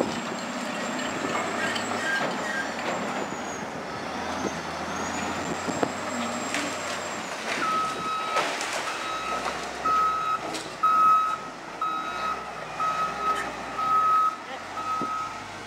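Wheel loader's engine running while it breaks down a masonry wall, with a few knocks of falling block. From about halfway in, its reversing alarm beeps about once every 0.7 s.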